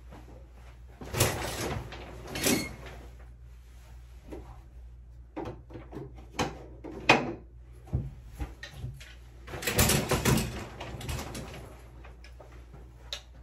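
Someone moving about and rummaging through things, making irregular knocks, clicks and rustles like drawers or cupboards being opened and shut, with a longer stretch of rustling about ten seconds in.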